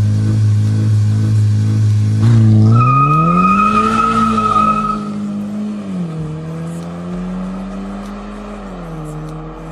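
Volkswagen Scirocco 2.0 TSI turbocharged four-cylinder engine, breathing through a homemade exhaust, revving. The engine holds steady revs, climbs to higher revs about three seconds in with a high whistle over it, then drops back in two steps.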